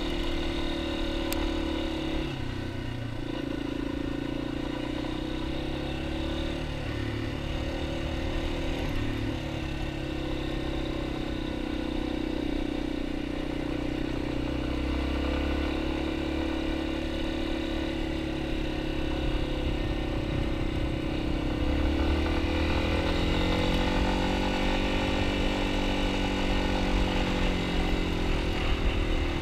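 Yamaha XT250's single-cylinder four-stroke engine running steadily as the bike is ridden, its pitch shifting with the throttle. Near the end the engine note climbs for a few seconds and then eases back down.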